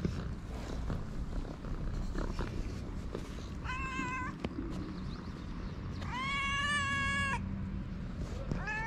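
Stray cats meowing: a short meow about four seconds in, a longer drawn-out meow a couple of seconds later, and another beginning right at the end.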